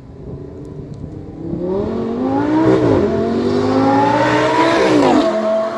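Audi R8 V10 with a Fi valvetronic exhaust accelerating hard toward the listener, getting louder. The engine note climbs in pitch and drops twice on upshifts, about three and five seconds in.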